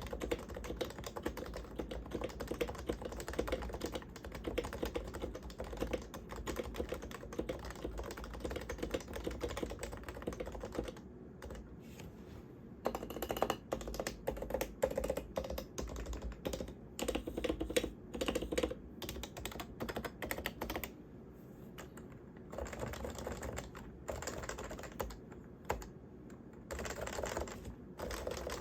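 Typing on a Topre Realforce R1 87UW tenkeyless keyboard, its Topre rubber-dome switches with sliders lubed with Tribosys 3204. The typing is fast and continuous for about the first ten seconds, then turns slower and broken, in bursts with short pauses between them.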